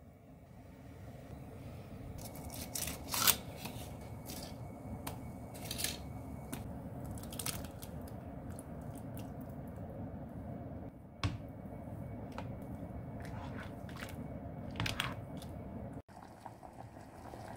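Cooking tomato soup in a pot on a gas stove: a few sharp clicks and knocks of utensils against the pot, soft squelches as canned chopped tomatoes go in, and a ladle stirring the soup. A steady low rush from the heated pot runs under it.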